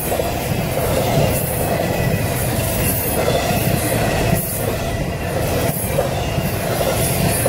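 Intermodal freight train's container well cars rolling steadily past, a continuous rumble and clatter of steel wheels on the rails with a faint high wheel squeal.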